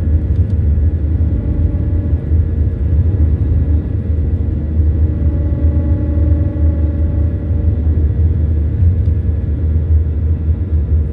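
Airbus A319 jet engines at takeoff power: a deep, steady rumble with a steady howling tone riding over it.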